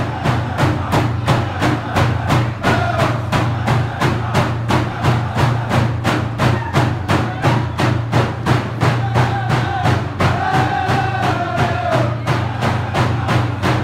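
Dene hand drums beaten in a steady, even beat of about two to three strokes a second, with drum singers' voices rising over the drums in stretches, plainest from about two-thirds of the way through.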